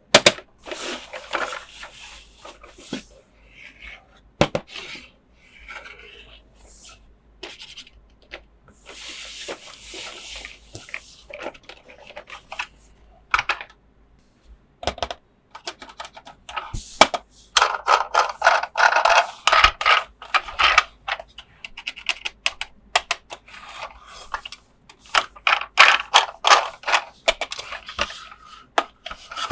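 Hands unboxing and handling a plastic toy playset and its packaging: irregular rustling and scraping broken by many sharp clicks and taps, busiest in the second half.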